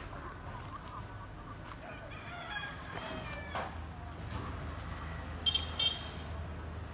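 A rooster crowing once, a long call sliding down in pitch about two seconds in. Near the end come two short, sharp, high-pitched sounds.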